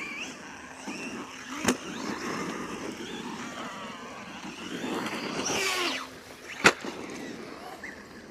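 MJX 10208 V2 RC truck driving over dirt, its electric motor whining up and down with the throttle and its tyres rolling on loose ground. There are two sharp impacts, one under two seconds in and one near seven seconds.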